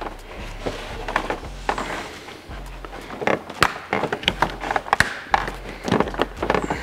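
Handling noise of a paper template and a carbon-fibre dive plane being positioned and pressed onto a car bumper: irregular crinkling, rustling and small clicks, busier in the second half.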